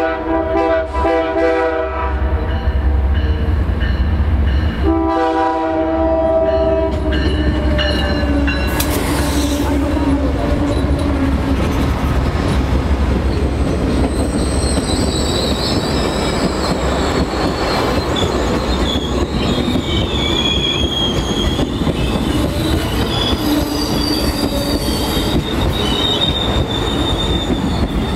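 Amtrak passenger train led by a GE P42 diesel locomotive, sounding two long horn blasts over a low engine rumble as it approaches. The locomotive and bilevel Superliner cars then pass close by, with a steady rush and clatter of wheels on rail. High, wavering wheel squeal comes in about halfway through.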